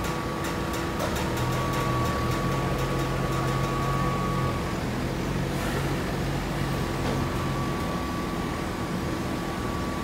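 Steady hum of industrial machinery running, with a quick run of light clicks in the first two seconds.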